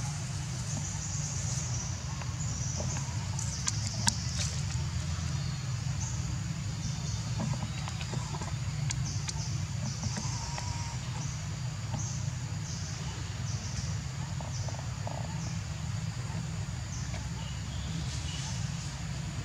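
Outdoor forest ambience: a high-pitched insect buzz that comes and goes in pulses of about a second, over a steady low rumble. A single sharp click comes about four seconds in.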